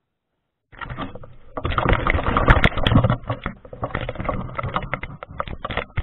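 Dense crackling and knocking handling noise from a small camera being picked up out of grass and carried, starting about a second in after silence. It is loudest a second or two later and then goes on as lighter, irregular clicks and rustles.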